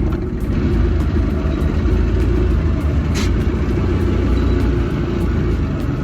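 A boat underway with its 1994 Mercury 90 HP two-stroke outboard running, heard as a loud, steady low rumble.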